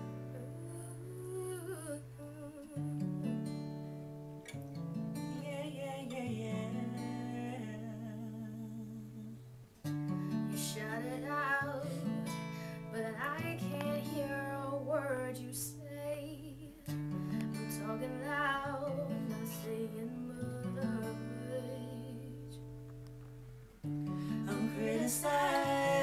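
Acoustic guitar playing sustained chords that change every few seconds, with a woman singing a wavering melody over it.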